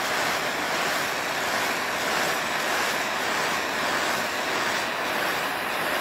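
Handheld gas torch burning with a steady hiss of flame, heating heat-shrink tubing onto a battery cable lug.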